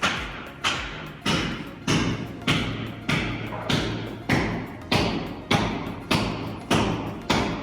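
Background music with a steady beat, about three hits every two seconds, each with a trailing wash, over a held bass line.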